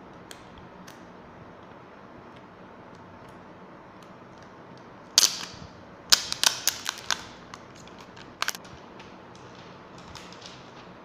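Sharp plastic clicks and crackles from a new Samsung Galaxy A10s smartphone and its packaging being handled. One loud crackle comes about halfway through, then a quick run of clicks for about a second, a pair of clicks a little later and a few faint ticks near the end.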